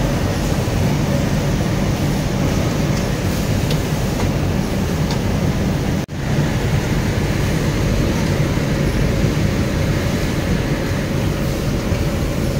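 Steady background noise of a garment factory floor: a continuous low rumble and hiss, with a few faint clicks. It drops out for an instant about six seconds in.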